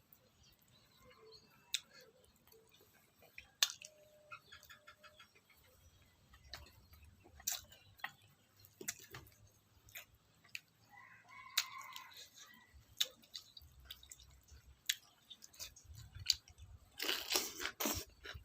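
Scattered sharp clicks and taps, with a quick run of ticks about four seconds in and a short burst of crunching rustle near the end.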